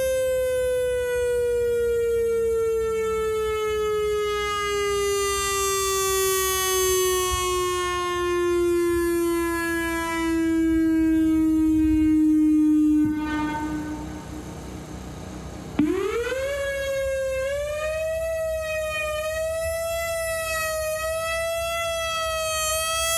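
Whelen WS-3000 electronic outdoor warning siren sounding a loud tone that slowly falls in pitch for about thirteen seconds and then cuts off. After a pause of about three seconds it starts again, rising quickly to a steady tone that wavers slightly.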